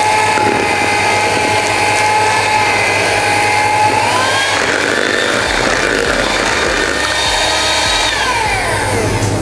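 Electric hand mixer running, its twin beaters whisking flour, eggs and water into a thin batter in a stainless steel bowl. A steady motor whine that rises in pitch about four seconds in and slides down near the end.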